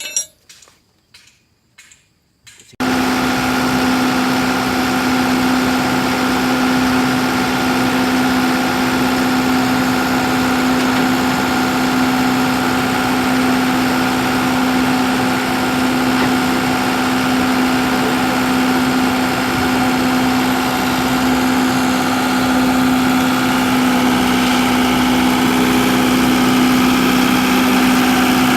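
A few light knocks, then about three seconds in an engine of a construction machine comes in abruptly and runs steadily at an even pitch, growing slightly louder near the end.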